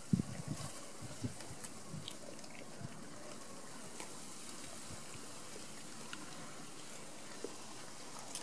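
Great Dane puppy chewing and tearing at lawn grass: irregular soft crunches, thickest in the first second and a half, then sparser.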